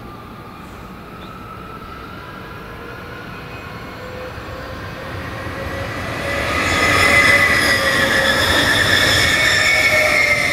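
A Stadler FLIRT electric multiple unit approaching and passing at speed. Its rolling noise and a whine of several steady tones grow steadily louder to a peak about two thirds of the way in, then stay loud as it pulls away.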